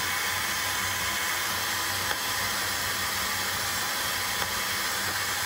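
Ulike Air3 IPL hair-removal device running: the steady whir of its cooling fan, with two faint clicks, about two seconds in and again about four seconds in.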